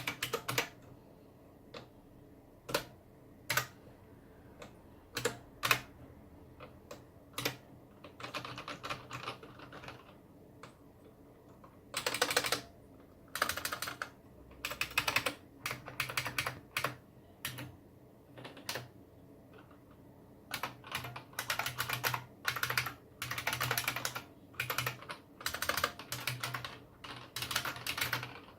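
Unicomp Model M buckling-spring keyboard being typed on, each key giving a sharp click. Single keystrokes at first, then bursts of fast typing.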